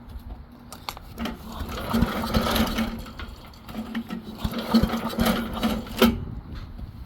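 A small motor whirring at a steady pitch with a rattle, in two spells of about two seconds each, stopping abruptly with a sharp click about six seconds in.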